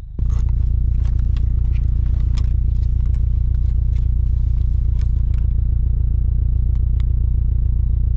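A steady low engine drone, a car idling, starting abruptly just after the start, with scattered clicks and light scraping of things being handled.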